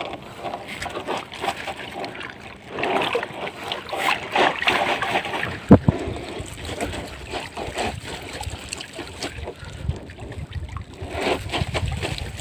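Water splashing and dripping as a wet fishing net is hauled in over the side of a wooden boat, with the mesh rustling in uneven bursts. A single sharp knock comes about six seconds in.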